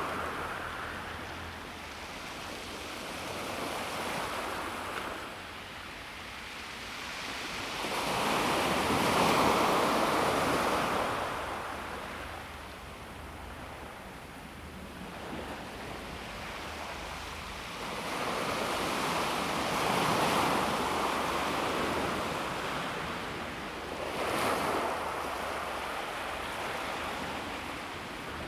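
Calm sea waves washing onto a pebble beach, rising and falling in a few slow surges, the loudest about nine seconds in.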